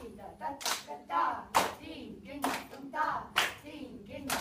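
Steady hand claps keeping the tala, about one clap a second, while women's voices chant Bharatanatyam rhythm syllables (takita, takadhimi) between the claps.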